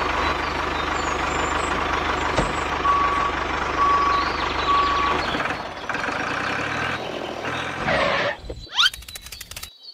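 Three short reversing-alarm beeps, about a second apart, over a steady noisy vehicle rumble. Near the end the rumble drops away, and a quick rising whoosh and a run of rapid clicks follow.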